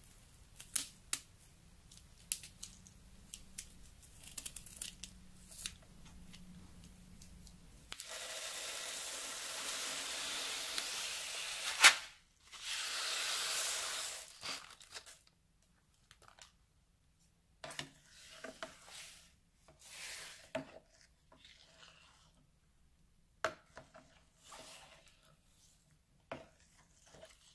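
Scissors snip the tip off a plastic piping bag and the bag crinkles, with scattered sharp clicks. Small beads then pour out of the bag onto slime with a steady hiss for about four seconds, a sharp click, and a second shorter pour. After that, short separate squishes and crackles come as a plastic spoon stirs the beads into clear slime.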